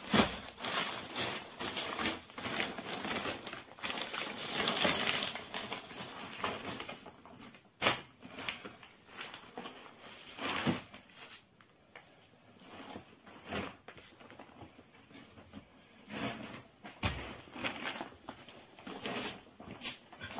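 Thin plastic sheet rustling and crinkling as it is handled and spread out on a rug, with a cloth being unfolded over it. A few sharp knocks stand out, near the start, about eight seconds in and again near the end.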